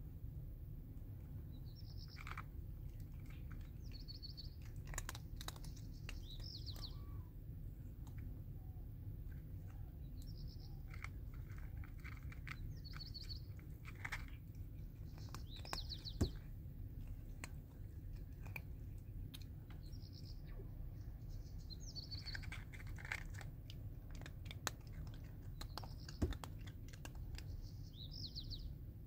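A cat chewing dry kibble, with sharp crunches here and there, while a small bird chirps short high notes every second or two in the background.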